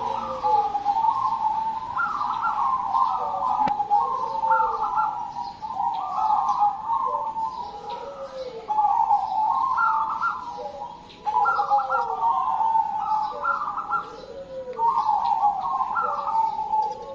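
Zebra doves (perkutut) cooing their rolling, repeated song phrases, several birds answering one another so that the phrases overlap, a new phrase about every two seconds.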